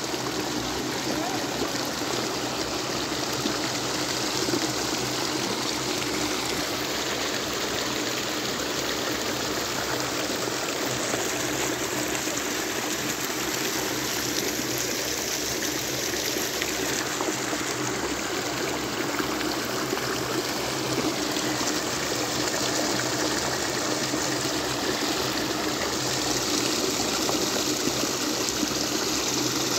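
Water rushing steadily out of a concrete outlet into a river, churning where it meets the river.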